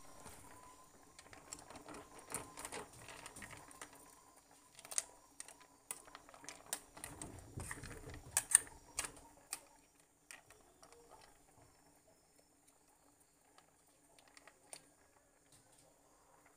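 Metal ladle clinking and scraping against an aluminium cooking pot while soup is stirred: a run of light, irregular taps and clinks for about ten seconds, the sharpest near the middle, then only a few faint ticks.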